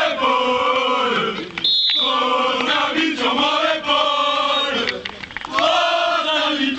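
A rugby team's group of young male voices chanting together as a victory chant, in long drawn-out phrases with brief breaks.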